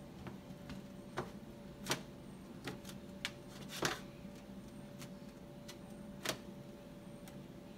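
Paint-covered rubber balloons dabbed onto a plastic paint tray and paper masks on a tabletop: about six soft, irregular taps, over a faint steady hum.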